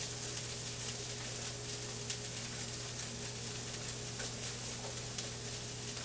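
Onions and flour sizzling in hot oil in a skillet as they brown for a gravy base, stirred with a slotted spatula that scrapes the pan lightly a few times. A steady low hum runs underneath.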